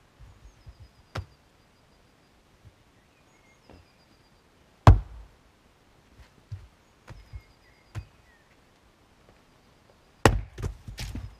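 Fiskars X25 splitting axe, swung one-handed, striking and splitting firewood. There are three sharp chops, the loudest about five seconds in. The last comes near the end and is followed by a quick run of wooden knocks, with lighter knocks in between.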